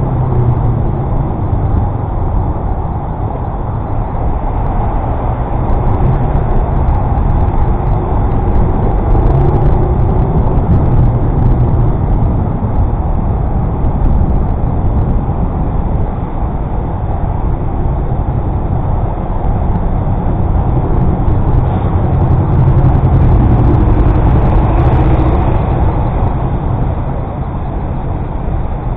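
Steady city road traffic heard from a moving bicycle: the engine and tyre noise of cars and buses.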